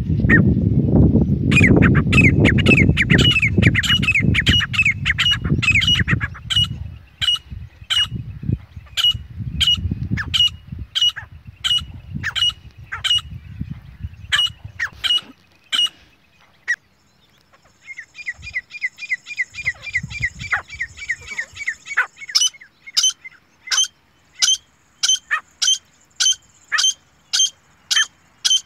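Grey francolin, the female's call: a long series of sharp, repeated notes at about two a second, with a faster run of short chirps a little past the middle. A low rumble lies under the first half.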